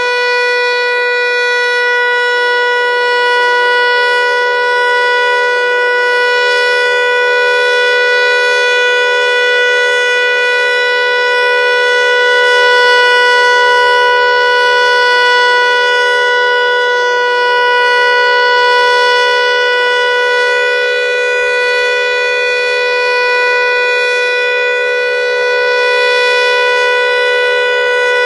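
Federal Signal Eclipse 8 electronic outdoor warning siren sounding its steady alert tone: one unwavering pitch with several overtones, loud and constant. An odd buzzing comes from the siren alongside the tone, of unknown cause.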